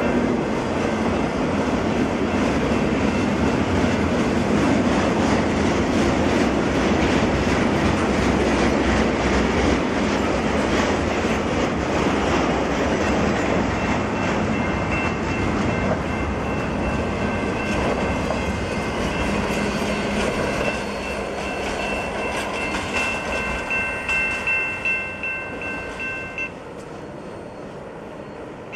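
Double-stack container freight train rolling past, the wheels clattering on the rails, the noise dropping off in the last seconds as the end of the train goes by. A level-crossing bell rings over it, its even strokes standing out as the train noise fades, then stops shortly before the end.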